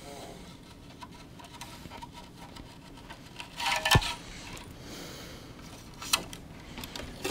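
Nylon-type tennis string being woven and pulled through a racquet's string bed by hand: soft rubbing and light ticks, with a louder zip of string sliding through the mains about four seconds in and a sharp tick a little after six seconds.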